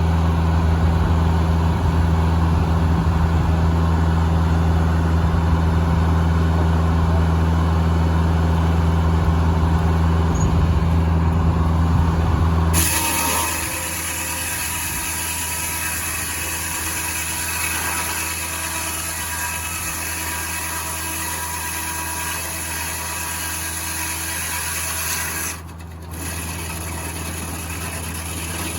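Circular sawmill and its engine running steadily with a strong low hum; about halfway through the sound changes abruptly to a quieter, hissier machine noise, with a brief drop near the end.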